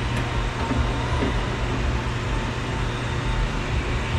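A vehicle engine idling steadily: a constant low hum with a hiss over it.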